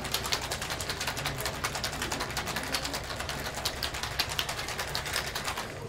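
Ice rattling fast inside a metal cocktail shaker as a cocktail is shaken hard, stopping near the end.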